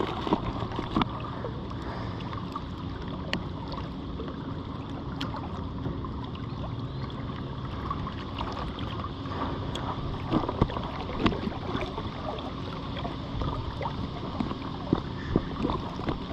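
Steady rush of moving river water with wind on the microphone. Scattered small clicks and knocks come from handling, as pliers are used to unhook a caught smallmouth bass.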